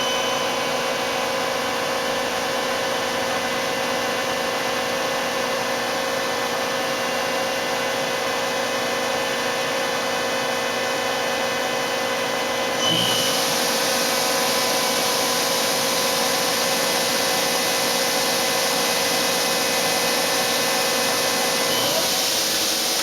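Mori Seiki ZL-25A CNC turning center running under power, a steady mechanical hum and whine made of several held tones. About halfway through, a loud steady hiss comes in and carries on.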